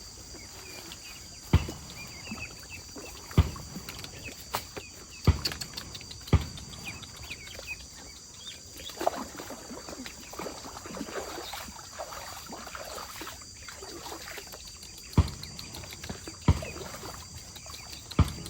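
A series of sharp knocks, each a second or two apart, with a gap of several seconds in the middle. Under them runs a steady high-pitched drone, with faint chirps in the first few seconds.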